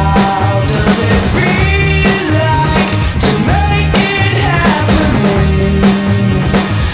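Background music with a steady drum-kit beat, a bass line and a wavering melody over it.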